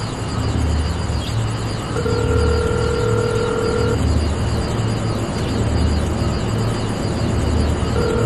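Low rumble that throbs about once a second under a steady hiss; a steady mid-pitched tone sounds for about two seconds starting two seconds in, and comes back near the end.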